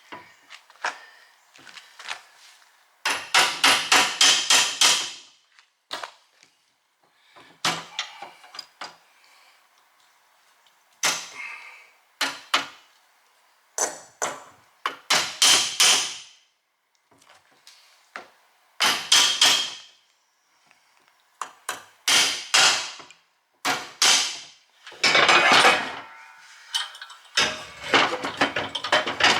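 Hammering: several bursts of quick hammer blows, each a run of several strikes, with short pauses between the bursts.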